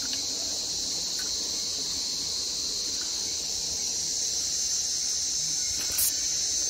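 Steady, high-pitched drone of a chorus of insects at the waterside, with one short click about six seconds in.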